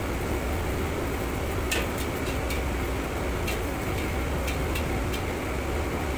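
Steady low rumble of a commercial kitchen's wok burner and extraction fan, with a series of sharp metal clinks from about two seconds in as a steel ladle strikes and scrapes the wok.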